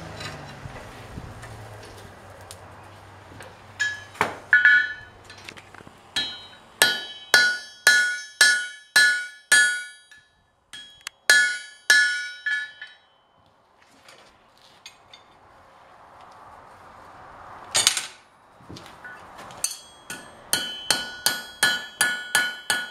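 Blacksmith's hand hammer striking a red-hot iron rod on an anvil, each blow ringing with a clear metallic tone. A run of even blows about two a second is followed by a pause and a single blow, then a quicker run near the end.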